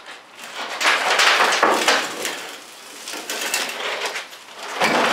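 Scraping and shuffling noise as a pickup truck bed is walked off its frame by hand, in two loud stretches with a quieter spell between.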